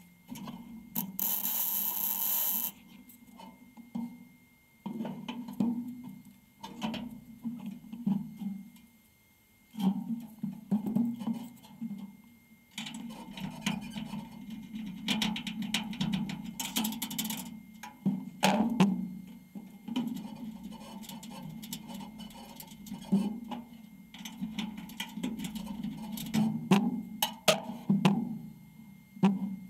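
Background music with a drum beat.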